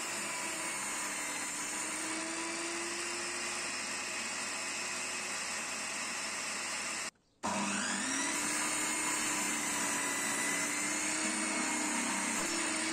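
Stanley table saw running with its blade tilted 5 degrees, bevel-cutting a block of reclaimed construction-post wood: a steady machine hum. The sound cuts out briefly about seven seconds in and comes back with a short rise in pitch.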